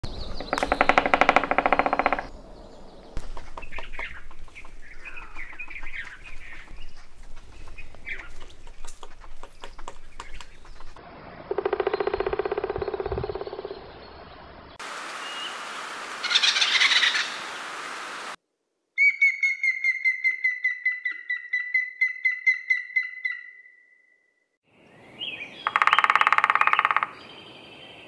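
A series of different woodpecker recordings with abrupt changes between them: loud calls, bouts of irregular tapping, and in the middle a run of about twenty quick repeated call notes that trail off.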